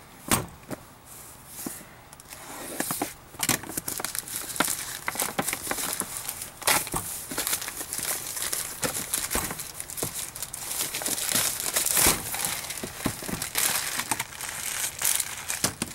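Thin plastic mailer bag crinkling and rustling as hands pull it open and off a cardboard box, in a dense run of irregular crackles from about two seconds in, with one sharp click just after the start.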